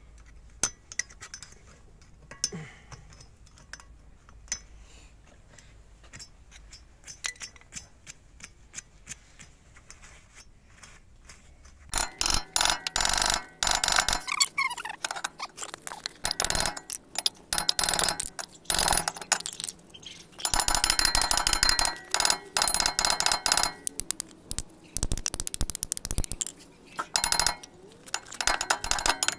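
Faint metal clicks of a hook tool picking at the retaining clip on a wheel stud, then about 12 seconds in a hammer starts beating on the rusty rear brake disc of a Ford Focus MK1 in rapid runs of loud strikes, the steel disc ringing at each blow. The disc is seized on the hub and does not come off despite hard hitting.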